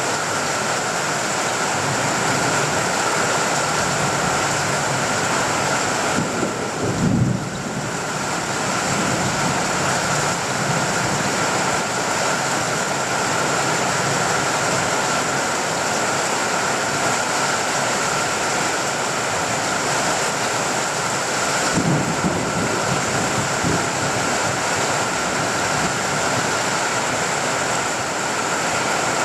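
Steady rain falling on a tin roof, with distant thunder rumbling low twice: once about seven seconds in, and again around twenty-two seconds in.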